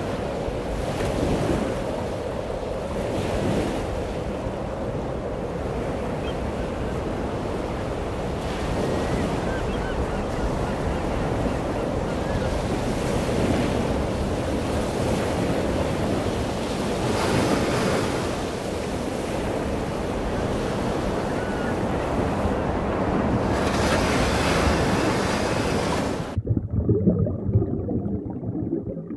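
Ocean waves and surf sound effect, a steady wash of breaking water. Near the end it cuts off abruptly to a low, muffled underwater rumble.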